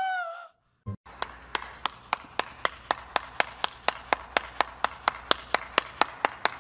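A woman's short scream, rising then falling, then one person clapping slowly and steadily, about three or four claps a second.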